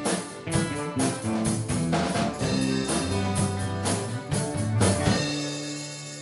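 Live rock band with drum kit and guitars playing the last bars of a song, with hard drum hits, ending on a final chord about five seconds in that rings on and slowly fades.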